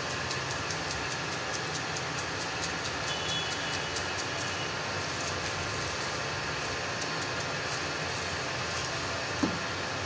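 A kitchen knife cutting watermelon flesh into a metal pot: faint quick clicks in the first half as the blade works through the flesh, with a sharp knock near the end. Under it runs a steady noisy street background.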